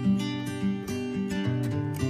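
Background music: acoustic guitar plucking and strumming a light tune.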